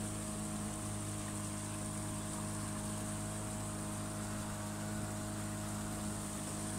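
A small boat's motor running steadily at cruising speed, an even hum with the wash of the churning wake behind it.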